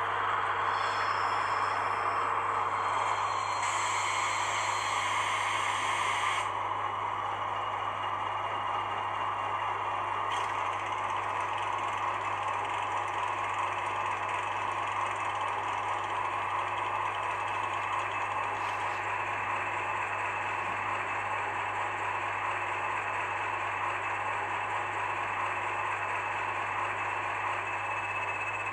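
Sound-equipped PIKO model of a Polish SM42 diesel shunter, its decoder playing a steady diesel engine sound through the model's small speaker as it runs on its track. The sound changes about six seconds in, losing its highest part.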